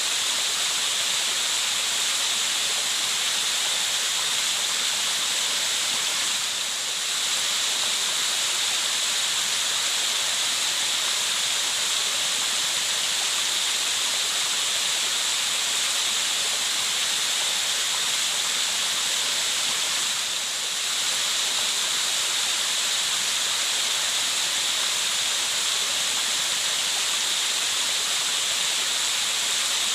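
Steady, unbroken natural white noise, a high hiss with little low end, dipping slightly twice, around 7 and 21 seconds in.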